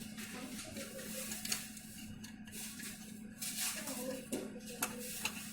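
Hands handling laptop parts: light scattered clicks and rustling, with a sharper click about a second and a half in and a few more near the end, over a steady low hum.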